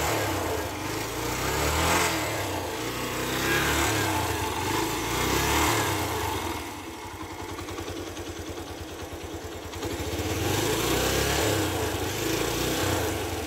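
Yamaha YBR 125's air-cooled single-cylinder four-stroke engine running after a rebuild with a new crankshaft and bearings, revved up and down several times, settling to a lower idle for a few seconds midway before being revved again. It runs without the knock it came in with.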